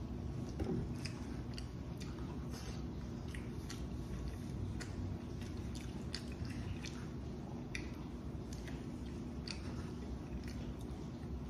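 A person chewing food close to the microphone, with many small irregular wet mouth clicks, over a steady low hum.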